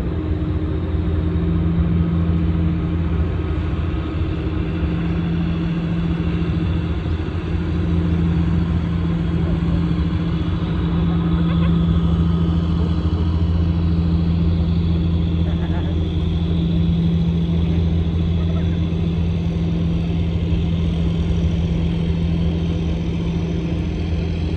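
Engine of a pom-pom boat, a tugboat pushing a barge, running steadily with a deep, even hum.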